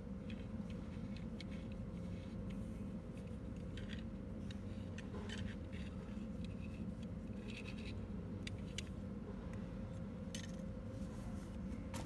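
Scattered light clicks, scrapes and rubbing as gloved hands turn over and handle the round escutcheons and thumb turn of a stainless steel privacy pocket door lock, over a steady low hum.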